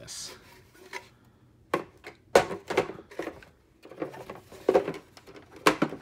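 Hard plastic knocks and clicks as the outer bag cover of a Hoover upright vacuum is handled and put back on over the bag, several sharp knocks spread over a few seconds.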